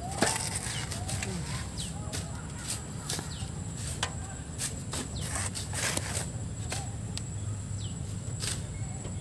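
Hand shovels scraping into a pile of river sand and shovelfuls of sand thrown into a steel dump-truck bed, irregular scrapes and thuds about once or twice a second.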